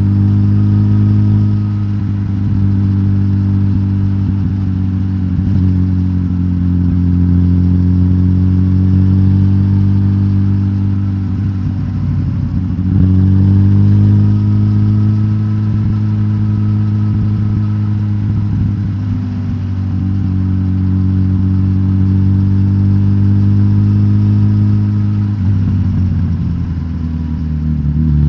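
Suzuki GSX-S1000GT's K5-derived inline-four engine running on a de-catted stock exhaust. Its note rises and falls slowly, with a dip and pick-up about halfway through and a drop near the end.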